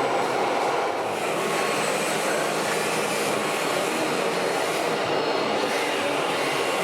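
Steady mechanical running noise of radio-controlled model trucks and construction vehicles, with no distinct knocks or changes.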